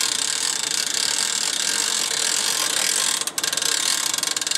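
Steady, loud, high-pitched rasping buzz of a summer insect chorus, made of very fast fine ticks, with a brief dip about three seconds in.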